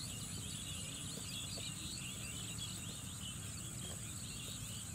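Insects trilling steadily at a high pitch, with many small birds chirping over them and a low steady rumble underneath.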